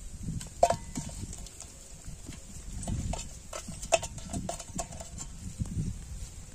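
A small freshly caught fish flapping in a stainless steel bucket, its body knocking against the metal in sharp, ringing taps: one loud knock about half a second in, then a quick flurry of taps around four seconds in.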